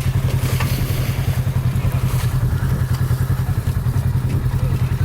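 Off-road vehicle engine idling steadily, with a rapid, even throb.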